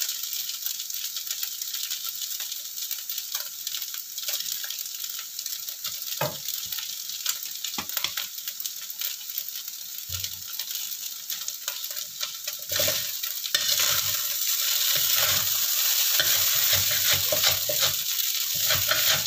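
Rice vermicelli frying in a hot wok: a steady sizzle with the metal spatula scraping and turning the noodles. The sizzle gets louder about two-thirds of the way through as the noodles are stirred harder, frying them until slightly crisp.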